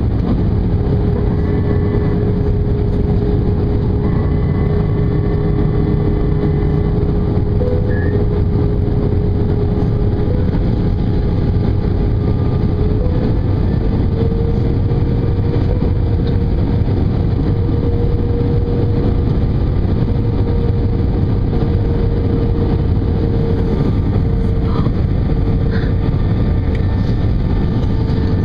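Cabin noise inside an Airbus A320 in flight: the steady rush of airflow and the jet engines, with an engine hum whose pitch steps up slightly about halfway through.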